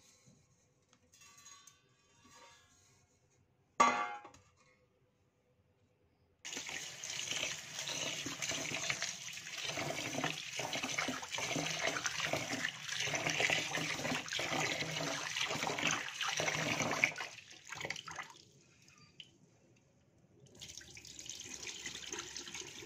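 Tap water running into a steel pot of rice while a hand rubs and swishes the grains, with a rhythmic swishing in the flow; near the end, rinse water pours off into the sink. A single sharp knock comes about four seconds in.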